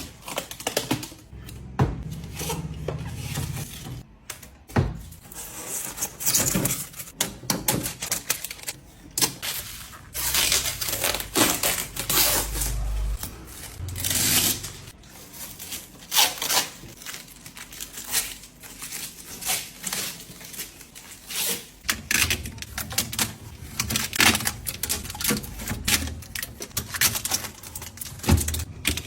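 A new refrigerator being handled up close: irregular clicks, taps and knocks of items and plastic parts, with some scraping and rustling.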